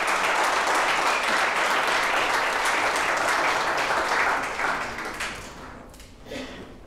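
Audience applauding at the end of a talk, steady at first, then fading away over about four to six seconds in.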